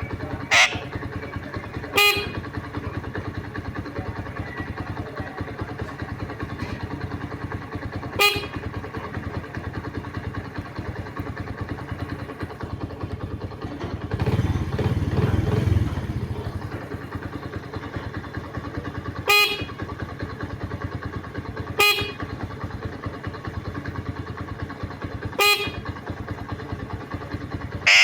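Alexandrine parakeet mimicking a motorcycle horn: short, horn-like beeps of one steady pitch, about six of them spaced several seconds apart, with a rising whistle near the start. A louder rough rumble lasts about two seconds, around fourteen seconds in.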